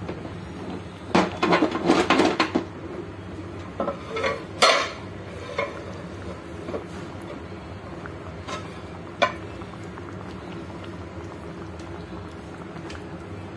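Metal kitchenware clinking and clattering: a burst of clatter about a second in, more around four seconds, then a couple of single clinks, over a steady low hum.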